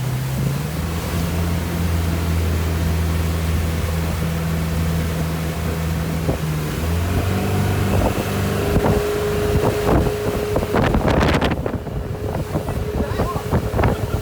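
Motorboat engine running with a steady hum that shifts pitch about seven seconds in. From about ten seconds in, choppy gusts of wind buffet the microphone over it.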